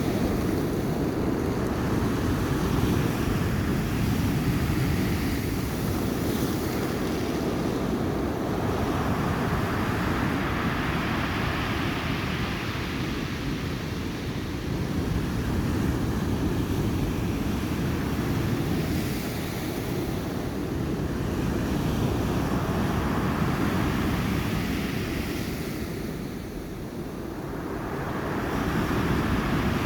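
Black Sea surf breaking and washing ashore in a continuous rush, swelling and fading every several seconds, with a lull a little before the end. Wind rumbles on the microphone underneath.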